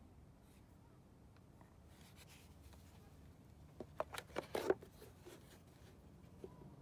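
Plastic air box cover of a Honda Ruckus scooter being pressed back into place by hand: a quick cluster of clicks and knocks about four seconds in, with quiet handling noise around it.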